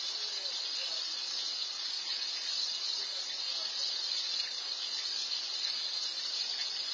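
Steady high-pitched hiss of outdoor background noise, even throughout, with no distinct sounds standing out.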